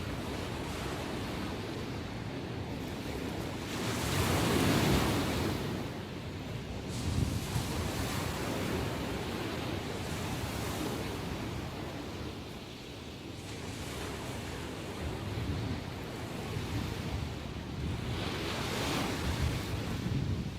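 Ocean waves breaking and washing on the shore, with wind on the microphone. The surf swells and recedes, with a loud wave about four seconds in, a smaller one about seven seconds in and another loud one near the end.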